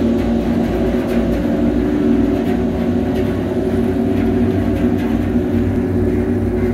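Engine of a workboat underway, a steady drone with a low rumble and a few held tones.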